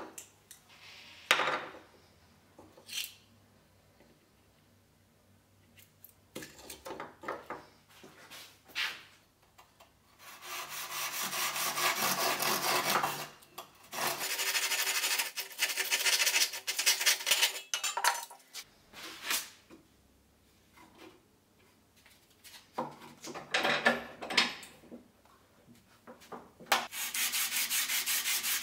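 A cuttlefish bone being sawn in half with a hand saw: long stretches of fast, even rasping strokes through the soft bone. Between them come scattered taps and knocks as the pieces are handled on a wooden bench. Near the end the bone is rubbed back and forth on sandpaper in a steady rhythmic rasp, sanding one face flat.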